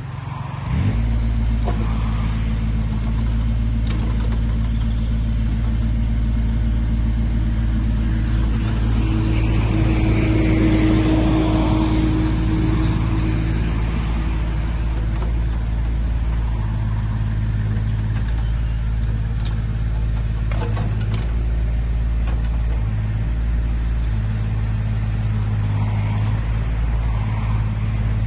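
JCB micro tracked excavator's small Perkins diesel engine running steadily while the machine is worked, with a louder, higher whine for a few seconds near the middle as the hydraulics take load. A few short knocks and clanks from the boom, bucket and tracks.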